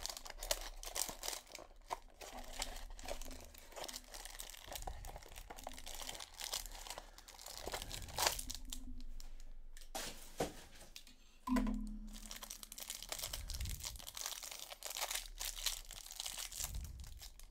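Plastic hanger-pack wrapping of trading cards crinkling and tearing as it is cut and pulled open by hand: irregular crackles, with a brief pause midway.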